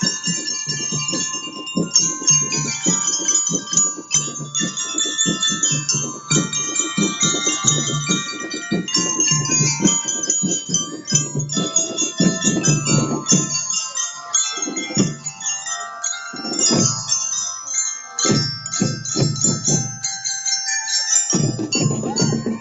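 A marching school band of hand-carried mallet keyboards playing a ringing, bell-like melody, with a low drum beat underneath. The drum beat thins out to a few single hits for several seconds in the second half, then comes back near the end.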